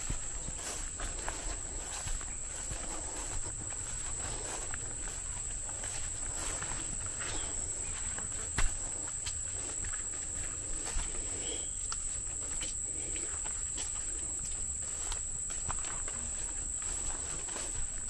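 Footsteps swishing through grass and brush on a forest trail, over a steady high-pitched insect drone. One sharper, louder click stands out about halfway through.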